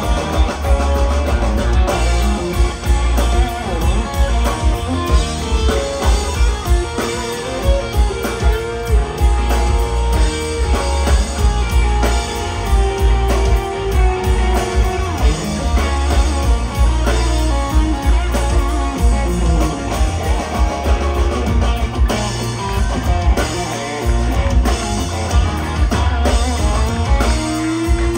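Live country band playing: electric and acoustic guitars with a drum kit and a heavy bass.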